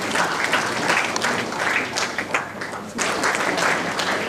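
Audience applauding, a dense patter of many hands clapping that dips briefly about three seconds in and picks up again.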